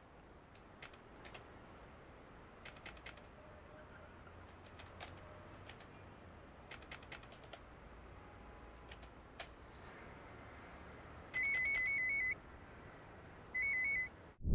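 Computer keyboard keys clicking faintly in short runs of a few strokes at a time, with pauses between. Near the end a much louder warbling electronic alert tone sounds twice, first for about a second and then for about half a second.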